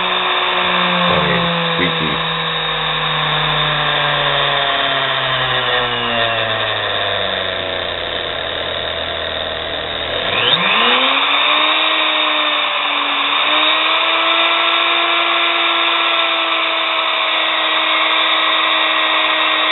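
Nano lathe's small, under-1/4-hp electric motor running with a whine that sinks slowly as the speed is turned down, then rises sharply about ten seconds in and holds steady at a higher speed. Under the whine is a rough scraping noise that the owner hears as scrapey sounds in the motor, and suspects of being bearing noise.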